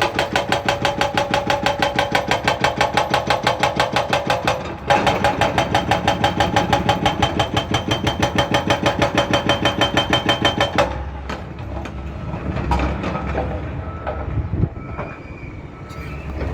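Excavator-mounted hydraulic breaker hammering in a rapid, even series of blows, pausing briefly about a third of the way in, then stopping about two-thirds in, leaving the Zoomlion excavator's diesel engine running.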